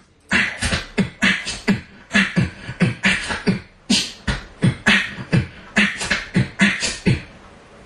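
Solo beatboxing: a steady beat of vocal kick-drum thuds alternating with hissy snare and hi-hat sounds, about three strokes a second, which stops about seven seconds in.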